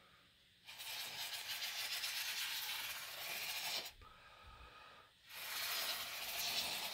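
Glue squeezed out of a small nozzle bottle onto a disc's surface, hissing with a fine crackle in two squeezes of about three seconds each, a second or so apart.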